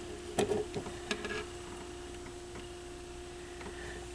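A few small clicks and rustles of a wire and small circuit board being handled, clustered between about half a second and a second and a half in, with a few fainter ticks later, over a steady faint hum.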